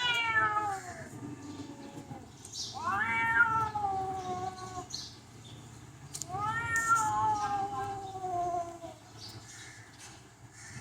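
Domestic cat yowling: long, drawn-out calls about three seconds apart, each rising briefly and then sliding slowly down in pitch.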